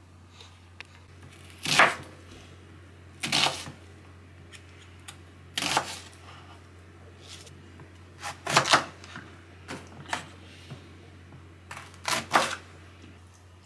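Ceramic kitchen knife cutting through onion and green pepper and knocking on the cutting board: single sharp strokes a second or two apart, some in quick pairs.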